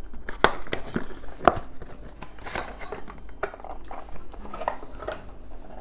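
Cardboard fragrance box being handled and opened by hand: irregular short scrapes, taps and rustles as the flaps are pulled open.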